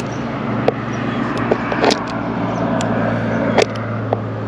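Screwdriver tip clicking and scraping against the screws of a plastic RV plumbing vent cap, a handful of short sharp clicks, over a steady low hum from a running motor.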